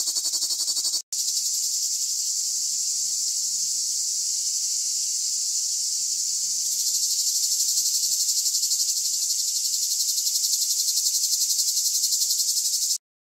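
Cicada singing: a steady, high-pitched, rapidly pulsing buzz. It breaks off for an instant about a second in, grows louder around the middle, and stops abruptly near the end.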